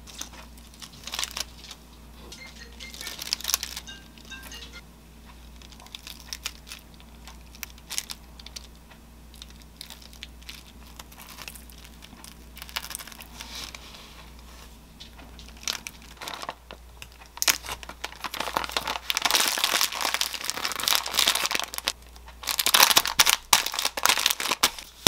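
Brown baking paper crinkling and rustling as a sandwich is folded and wrapped in it, loudest and densest in the last third. Before that there are only light taps and clicks of the sandwich being put together.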